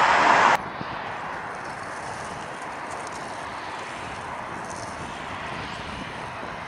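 Loud, steady roar of a departing four-engine Boeing 747's jet engines, cut off suddenly about half a second in. It gives way to a much quieter, even rushing noise: distant jet noise from an Airbus A319 on approach, mixed with wind.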